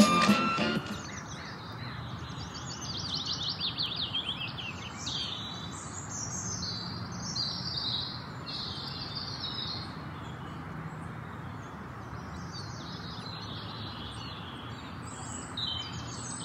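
Small birds chirping and singing, with a quick run of repeated notes a few seconds in, over steady background noise.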